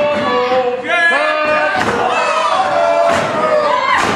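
Wrestling crowd shouting and chanting, several voices at once, with a couple of thumps from the wrestlers in the ring.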